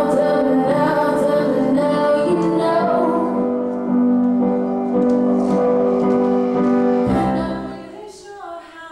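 Slow music with long held notes and a woman singing; it drops sharply in level about seven seconds in, leaving a quieter gliding voice line.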